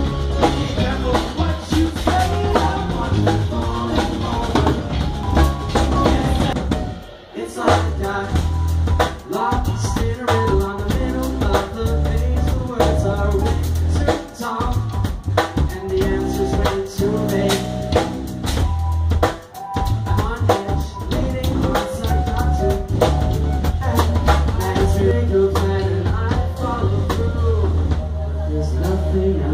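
Live band playing an instrumental stretch: a drum kit hitting hard and busy over electric bass and other pitched instruments. The band stops dead for a moment about 7, 14 and 19 seconds in, then comes straight back in.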